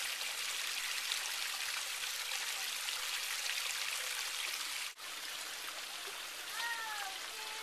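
Small stream splashing over mossy rocks with a steady rush of water. It breaks off for a moment about five seconds in and then carries on slightly quieter.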